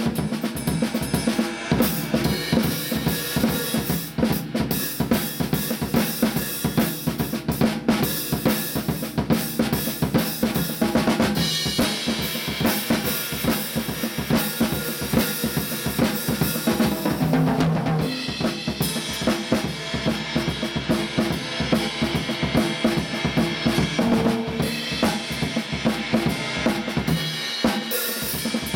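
Drum kit played with sticks: a continuous, busy pattern of snare, bass drum and cymbal strokes with no pause. The featured snare is a Mapex BRBR465HZN "Sledgehammer" snare drum.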